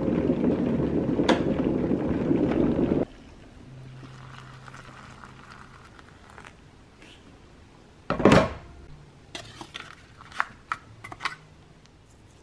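Electric kettle at a full boil, a loud steady rush that stops abruptly about three seconds in. Later there is a short loud burst, then a run of light clicks and taps as a spoon stirs a plastic instant-noodle pot.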